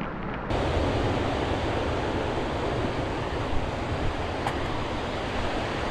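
Ocean surf washing steadily onto the beach, mixed with wind on the microphone, stepping up suddenly in level about half a second in.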